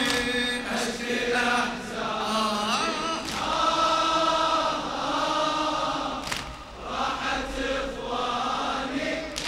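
A congregation of mourners chanting a Shia Muharram lament (latmiya) refrain together, many voices holding long sung lines in unison.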